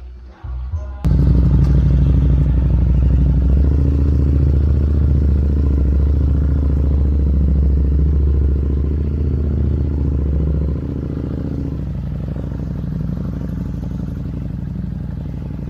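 Motorcycle riding at a steady speed: a loud, steady engine drone with rushing air noise, cutting in abruptly about a second in and easing off a little near the end.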